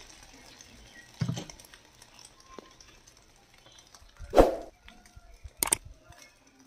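Brief knocks and taps over a low background as a wooden stick prods egg batter cooking in an unniyappam pan. The loudest knock comes about four seconds in, with a couple of sharp clicks near the end.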